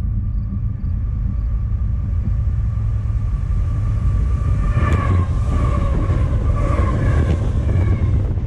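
A freight train led by three CSX diesel locomotives, running at speed and passing directly over the camera: a loud deep rumble throughout. A high, steady ringing tone rises over it from about a second in, and sharp clicks come in the second half as the locomotives and the first ballast cars roll by.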